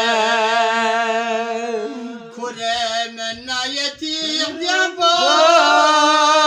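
A man singing a Sufi qasida with no instruments heard, drawing out long notes with a wavering vibrato. A low steady note is held beneath the melody. He breaks into shorter phrases around the middle and then swells back into a long held note.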